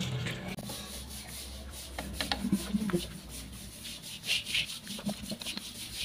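Tongs scraping and rubbing against a pan as saucy ribs are turned and stirred in it, with small clicks and a few louder scrapes about four seconds in.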